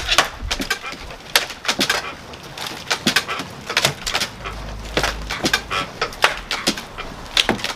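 Irregular sharp knocks and cracks of a wooden shed frame being knocked and pried apart, with a brief low rumble about halfway through.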